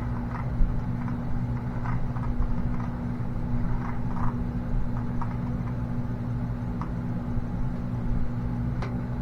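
A steady low hum with a constant pitch, with a few faint clicks and taps scattered through it.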